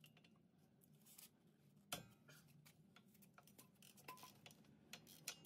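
Near silence with a few faint metallic clicks from hand tools on the brake caliper bolt, the loudest about two seconds in.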